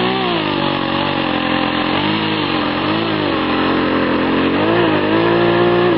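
Radio-controlled model airplane's single piston engine running near idle as the model taxis. Its pitch rises and falls briefly about four times as the throttle is blipped.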